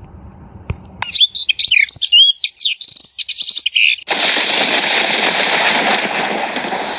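Birdsong sound effect: quick chirps and tweets start about a second in and run for about three seconds, then give way to a steady rushing noise.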